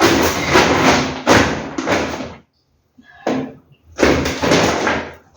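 Groceries being handled as they are unpacked: two spells of rustling and knocking, the first about two seconds long, the second shorter, about four seconds in.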